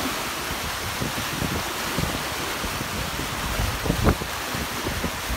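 Water rushing and churning in the wake of a sailing catamaran's hull under sail, with gusts of wind buffeting the microphone.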